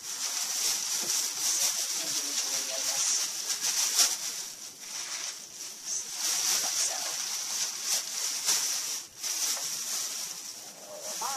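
Packaging rustling and crinkling as items are handled and pulled from bags and boxes, a continuous uneven hiss with many small crackles.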